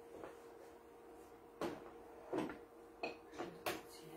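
A few light knocks and clinks of kitchen utensils against dishes and cookware, about five short ones starting about a second and a half in, over a faint steady hum.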